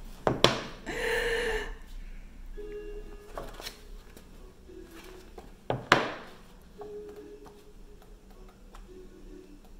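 Quiet music playing in a small room, a soft melody in the background. Handling noises break in: a sharp knock about half a second in, a brief rustle just after, and a louder knock about six seconds in.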